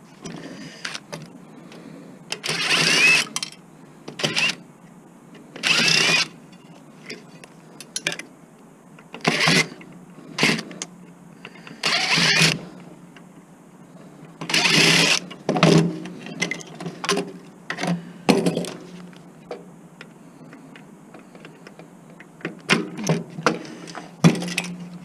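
Metal parts of a table saw being worked loose while it is taken apart for scrap: about ten short, noisy bouts of scraping and clanking, each up to a second long, with pauses between them.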